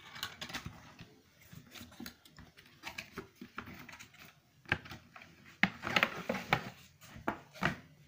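Unboxing handling sounds: a cardboard box opened and a plastic toy ATM piggy bank lifted out of it. Scattered taps, rustles and knocks, busiest in the second half.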